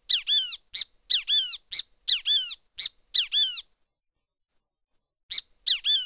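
Great kiskadee calling: shrill calls, each a sharp short note followed by a phrase of downward-slurred notes, four in quick succession, then after a pause one more near the end.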